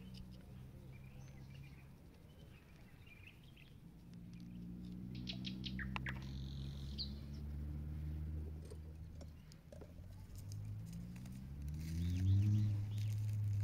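Birds chirping over a low droning hum of several steady tones, which rises in pitch and gets louder near the end.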